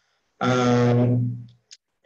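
A man's drawn-out 'uhh' hesitation sound, held at one steady pitch for about a second after a moment of silence, then a short faint click.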